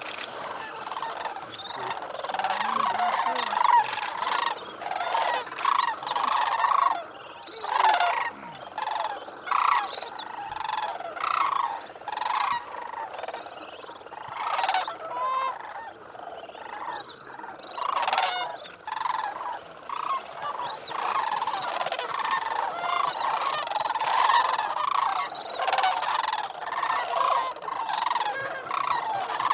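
A large flock of sandhill cranes calling together: a continuous chorus of many overlapping calls.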